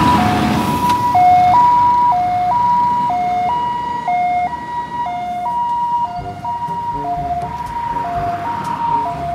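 Ambulance siren sounding a two-tone hi-lo call, switching between a high and a low note about every half second. Passing road traffic noise is loudest in the first few seconds.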